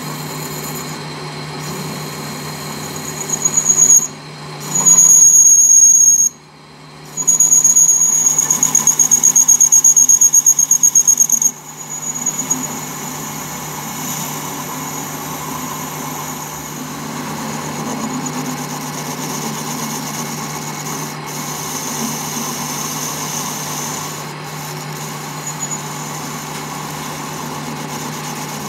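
Metal lathe facing the end of a spinning gear shaft: the tool bit screeches on the metal with a loud, high-pitched squeal that breaks off twice and stops about twelve seconds in. The lathe keeps running with a steady hum and cutting noise.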